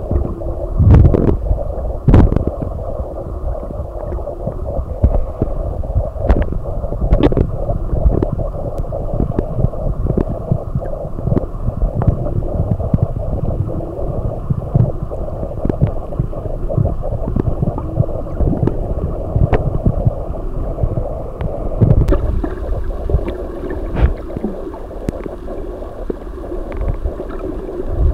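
Underwater camera sound while a snorkeler swims: a steady low rumble of moving water around the camera, with uneven thumps and small clicks.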